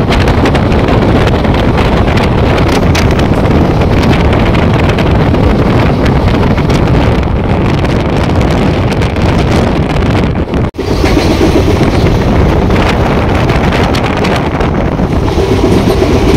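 Moving passenger train running at speed, its rumble covered by heavy wind on the microphone. The sound cuts out for an instant about eleven seconds in and then carries on.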